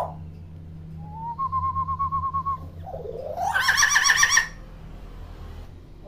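Common hill myna calling. About a second in it gives a short rising note that turns into a rapid pulsed whistle. Around three seconds in, a louder note sweeps upward and breaks into a fast, harsh warble.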